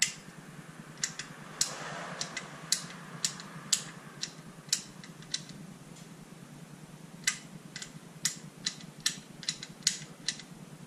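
Chainsaw on/off switch in its plastic handle housing being clicked back and forth while tested for continuity: a run of sharp, irregular clicks, several a second at times, over a steady low hum.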